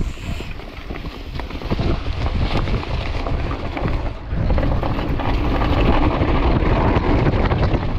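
Mountain bike descending a dirt forest trail at speed: wind buffeting the microphone over the rolling noise of the tyres, with many small clattering knocks from the bike over bumps. It grows louder about four seconds in.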